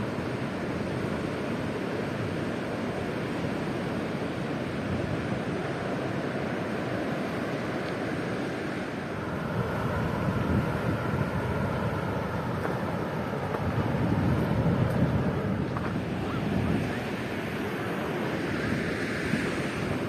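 Ocean surf breaking and washing ashore, a continuous rush that swells louder twice, with some wind on the microphone.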